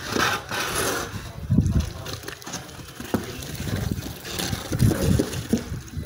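Wet cement mortar sloshing and sliding out of a tipped wheelbarrow onto the floor: a wet gushing wash at first, then dull low bumps and rumbles as the load slumps out.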